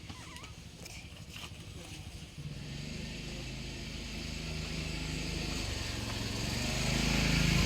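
A motor running with a low, steady hum that starts about two and a half seconds in and grows louder toward the end, with a hiss rising over it. A few faint clicks come before it.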